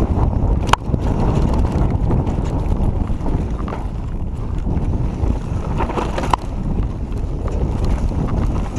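Wind buffeting an action camera's microphone over the rumble and rattle of a Giant Reign mountain bike running fast down a dirt singletrack, with a sharp knock just under a second in and two more around six seconds in.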